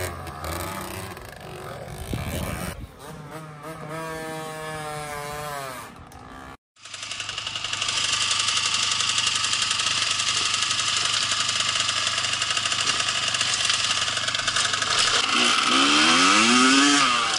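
Small off-road motorcycle engine revving up and down a few times. After a sudden break, a loud steady engine buzz with wind noise on the microphone, and a rev rising near the end.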